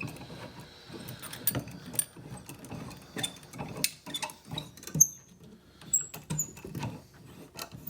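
A lock pick and tension wrench working the pin stack of a challenge lock: irregular small metallic clicks and scrapes, a few with a brief high ping, the sharpest about five seconds in.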